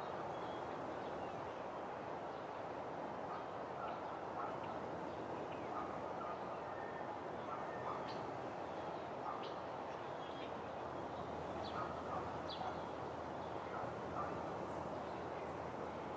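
Steady outdoor background rush, with faint, short bird chirps scattered through it, more of them in the middle of the stretch.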